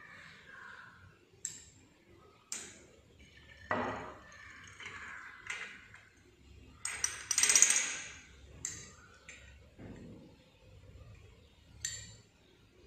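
Glass clinking: a glass pipette and test tubes tapping against each other and the metal test-tube rack while liquid is pipetted into the tubes. Several sharp separate clinks, with a louder, longer clatter about seven to eight seconds in.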